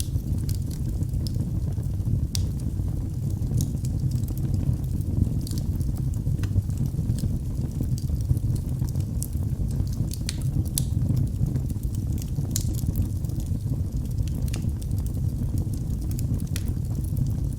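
Fireplace fire crackling: a steady low rumble of flames with many sharp crackles and pops at irregular intervals.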